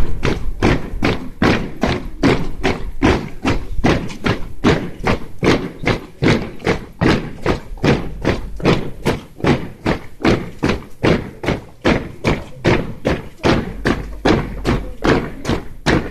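Spectators clapping in time, a steady beat of sharp claps about three a second.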